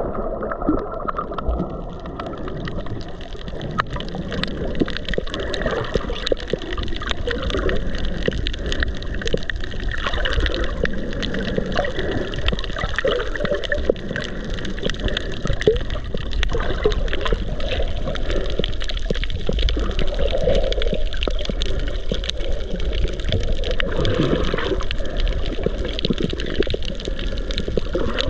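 Steady muffled sloshing and gurgling of seawater around a GoPro held underwater, with a faint crackle throughout.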